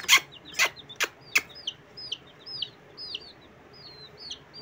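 Young chick peeping: short, high, thin peeps repeated about three times a second. A few sharp clicks sound in the first second and a half, the first one the loudest.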